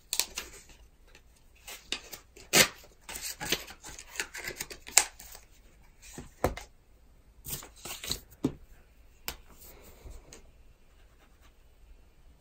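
Paper handling on a wooden desk: scattered clicks and rustling as a sheet is torn from a sticky-note pad and markers are picked up and set down, busiest in the first half and thinning out near the end.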